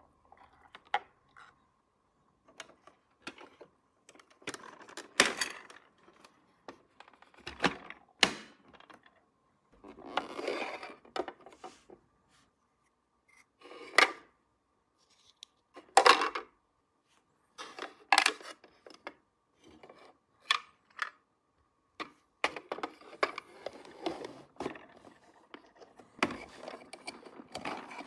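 Small plastic toy pieces being handled and set down, giving irregular clicks and clacks with stretches of light rustling.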